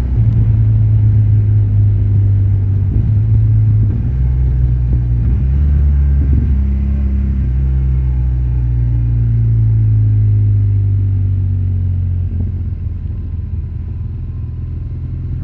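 Motorcycle riding on the road, heard through a rider's clip-on wireless mic: heavy wind rumble on the microphone over a steady engine drone. The engine note falls slightly past the middle, and the sound eases a little near the end.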